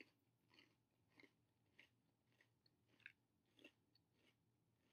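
Faint chewing of a mouthful of crunchy snacks: mini basil bread sticks, oregano rice crackers and garlic crostini crunched between the teeth, about six soft crunches at an uneven pace with a short pause midway.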